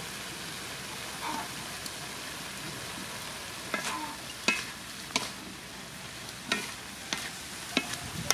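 Cow heart, cucumber pickle and green onion sizzling in a wok with a steady frying hiss. From about halfway through, wooden chopsticks stirring the food knock against the pan several times in sharp clicks.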